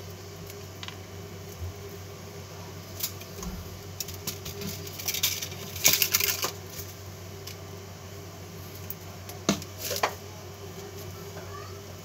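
Enamelled copper magnet wire being pulled and wound by hand around a toroidal transformer core during rewinding of the primary. Scattered clicks and scratchy rustles, loudest about six seconds in and again near ten seconds.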